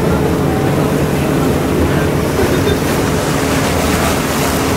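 Motorboat engine running steadily with the boat under way, water rushing past the hull and wind buffeting the microphone.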